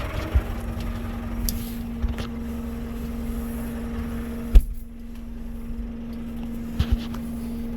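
Case CX100 tractor's diesel engine running steadily with the rear PTO engaged and turning, with a steady whine over the engine rumble. A few light knocks, and one sharp knock a little past halfway, after which the sound is more muffled.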